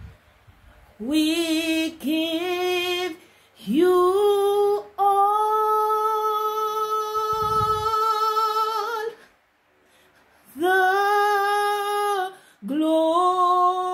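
A woman singing a slow worship chorus unaccompanied, in drawn-out phrases with one long held note of about four seconds in the middle and a short pause near the end.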